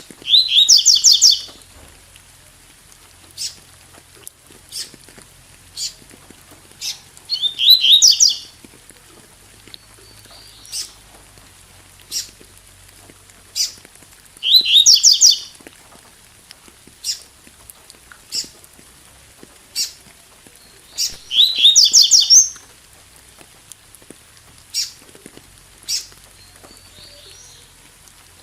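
Double-collared seedeater (coleiro tui-tui) singing: four short phrases of rapid repeated high notes, each about a second long, roughly every seven seconds. Scattered sharp ticks fall between the phrases.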